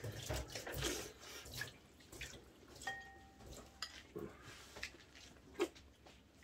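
Faint eating sounds at a meal table: soft clicks and taps of spoons and chopsticks against bowls, with one ringing clink about three seconds in.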